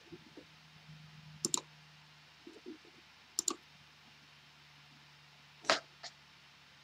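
Computer mouse button clicks: a few sharp clicks a couple of seconds apart, each heard as a quick press-and-release pair, with a louder, longer click near the end, over a faint steady low hum.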